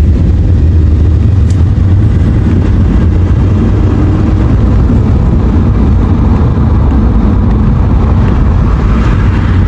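Steady low rumble of a car driving, the road and engine noise heard from inside the cabin.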